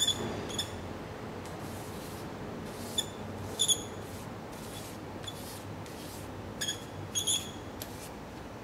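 Soft scratchy strokes of a drawing stick rubbed back and forth across paper held against a wall sign, taking a rubbing of it. Short high chirps come in pairs several times, louder than the rubbing.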